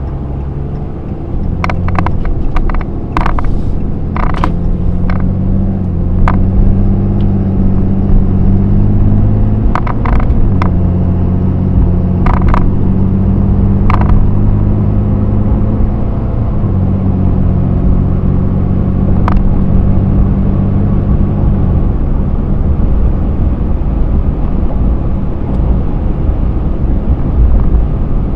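Ram 3500 heavy-duty pickup heard from inside the cab while accelerating onto the highway. The engine hum steps to a new pitch a couple of times and gives way to steady road noise in the last several seconds. Several sharp clicks come through in the first half.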